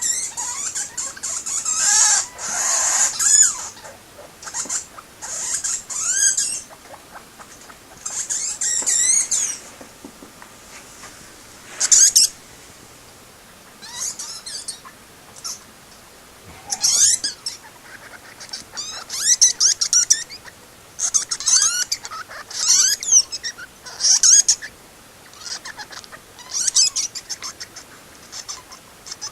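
Two pet rodents squeaking and chirping in repeated high-pitched bouts, each a quick run of wavering calls lasting a second or so, with short pauses between. These are the noises they make while chasing each other around the cage after a sand bath, which the owner takes for mating excitement.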